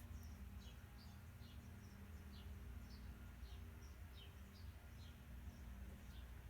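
Faint, repeated short chirps falling in pitch, at irregular intervals of about one or two a second, like a small bird calling, over a steady low hum.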